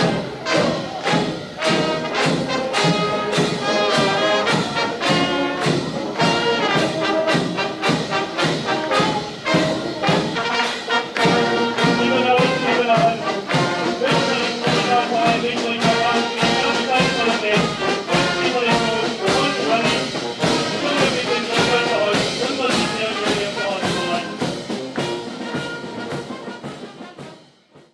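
Brass band music with a steady beat, fading out near the end.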